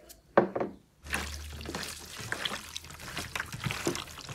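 Two brief sharp sounds about half a second in, then bare hands squishing and kneading raw duck livers in a stainless steel tray: a continuous wet squelching full of small clicks.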